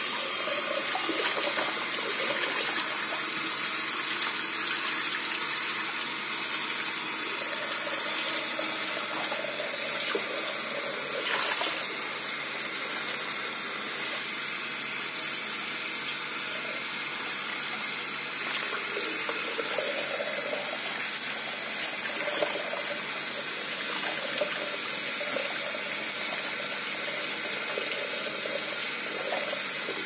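Hot water running steadily from a kitchen tap onto a plate holding sliced vegetables in a plastic bag, splashing and spilling over the edge into the sink.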